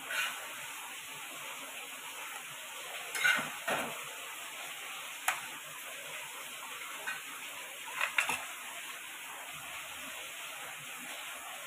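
A few light taps and knocks as crisp garlic puris are set down and arranged on a serving plate, over a steady hiss.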